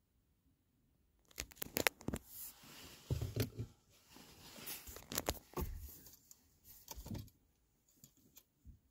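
Rustling, crinkling and scraping close to the microphone, in irregular bursts with a few sharp clicks from about a second in until about seven seconds in, then fainter.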